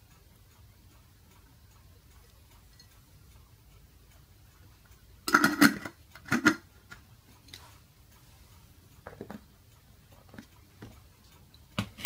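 A glass jar and its metal screw lid being handled. Near silence for about five seconds, then a few clinks and scrapes as the lid goes back on the jar, followed by scattered light clicks.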